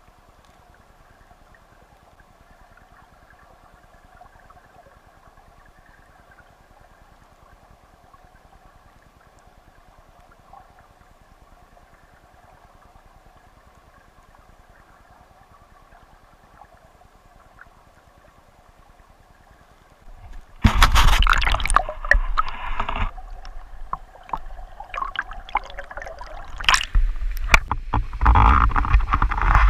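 Creek water heard through an underwater camera: a faint steady rushing of the current. About two-thirds of the way in, the camera breaks the surface and loud, irregular splashing and sloshing of the stream against it takes over.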